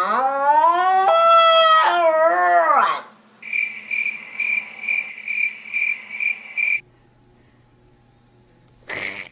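A dog howling in one long, wavering, pitched call for about three seconds, followed by a high chirp repeated about three times a second for about three seconds, and a short sound near the end.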